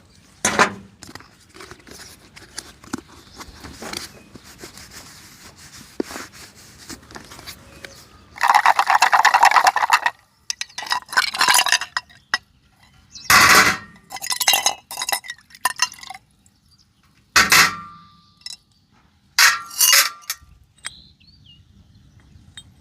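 Small metal carburetor parts and hand tools clinking and knocking on a work surface as the carburetor is taken apart. A loud rushing or scraping burst lasts about a second and a half near the middle, and several shorter loud bursts follow.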